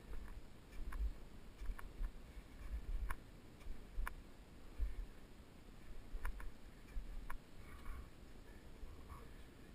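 A climber's muffled footsteps on a snow ridge, low thuds roughly once a second, mixed with light ticking clicks.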